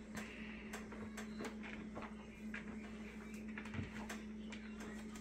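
Spatula stirring a wet wild rice fish cake mixture in a plastic bowl: faint, irregular scrapes and soft taps, over a steady low hum.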